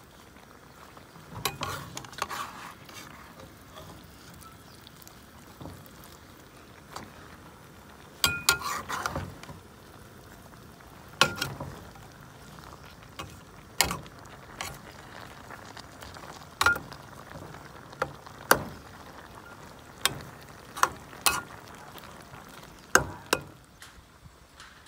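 Kale and canned fish stir-frying in a wok: a low sizzle, with the spatula scraping and knocking sharply against the pan at irregular intervals.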